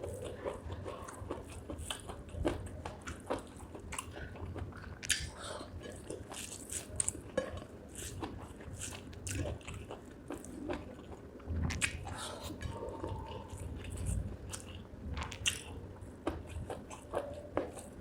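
Close-up chewing and biting of spicy chicken gizzard with rice, with many short, irregular mouth clicks and smacks.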